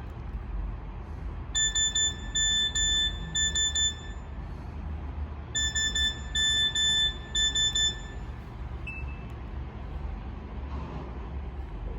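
Nokia 6500 slide mobile phone playing a simple beeping ringtone: a short rhythmic phrase of electronic beeps, all at one pitch, played twice over a steady low background rumble.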